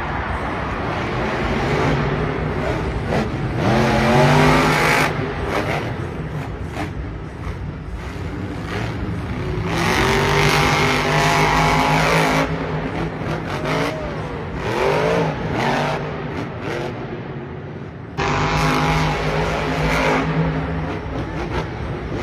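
Max-D monster truck's supercharged engine revving, its pitch climbing and falling in several runs. The sound jumps suddenly about eighteen seconds in, where one clip cuts to another.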